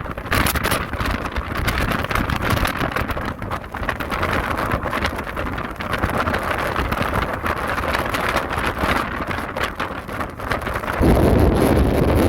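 Gale-force wind buffeting the microphone over heavy surf on the shore. About eleven seconds in, the sound gets louder and deeper as a stronger surge of wind and waves comes in.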